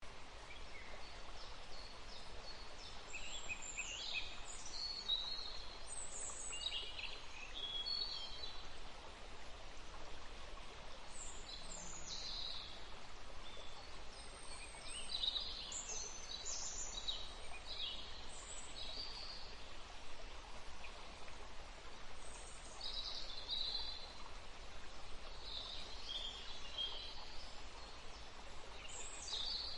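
Birds chirping in short scattered calls over a steady background hiss.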